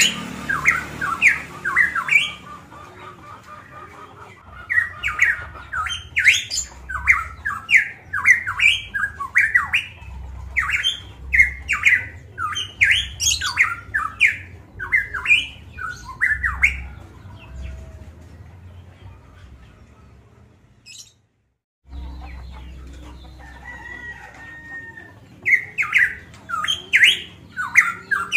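Caged variable pitohui singing loud, fast runs of short chattering notes in bursts, with pauses between them. The sound drops out completely for about a second around 21 seconds in, and the bird resumes near the end.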